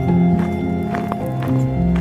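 Background music: held notes shifting in pitch over a steady bass, with light percussive taps.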